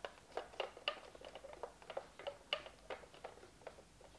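Faint, irregular light plastic clicking, about four clicks a second, from the Futaba T2HR transmitter's sticks being worked and snapping back to centre.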